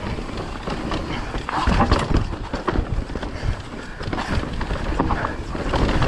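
Mountain e-bike on Michelin DH22 front and DH34 rear tyres rolling fast over rough, rocky dirt: tyres crunching over rocks with irregular knocks and thuds as the bike and its suspension take the hits, over a constant low rumble.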